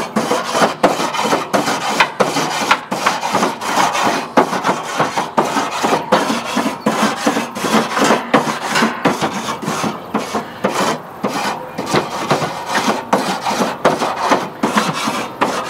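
A grill brush scrubbing back and forth across the cooking grates of a Char-Griller Gravity 980 charcoal smoker: a steady run of quick scraping strokes, the grates being cleaned.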